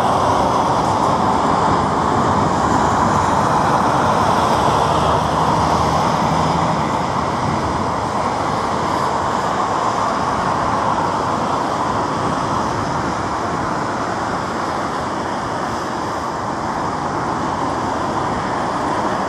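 Jet engines of an Airbus A330 on short final and touching down: a steady, loud rushing noise that eases slightly in the second half.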